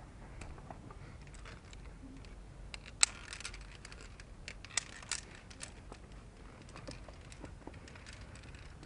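Scattered light metallic clicks and knocks of via ferrata climbing gear, carabiners clinking against the steel cable and rock, with one sharp click about three seconds in.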